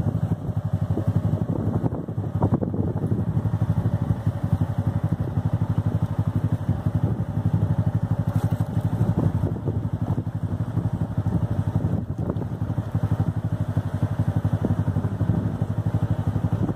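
Small engine of an open side-by-side utility vehicle running steadily under way, with a fast, even pulsing throb.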